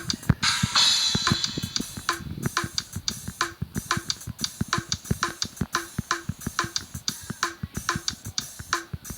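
Drum kit playing a quick, steady forró groove of bass drum, snare and hi-hat, with a cymbal crash about half a second in.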